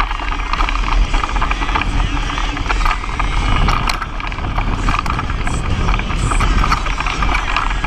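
Trek EX7 29er mountain bike riding fast over a dirt singletrack, heard from a camera mounted on the bike: continuous rattling of the bike over bumps and tyre noise on the dirt, over a steady low rumble.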